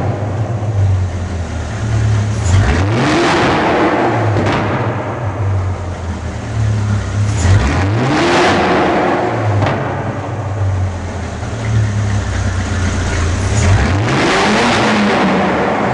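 Ferrari 458 Speciale's 4.5-litre naturally aspirated V8 breathing through an Fi Exhaust valved cat-back with the valves open, free-revved three times to about 5000 rpm: each time the pitch climbs quickly, holds for about two seconds, then drops back to idle.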